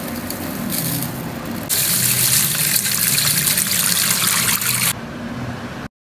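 Water running and splashing into a steel bowl while basmati rice is rinsed by hand. The flow gets heavier about two seconds in, eases near five seconds, and cuts off suddenly just before the end.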